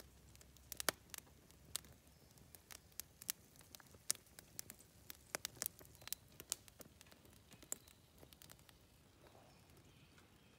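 Wood fire crackling: faint, irregular sharp pops and snaps, a few a second, thinning out near the end.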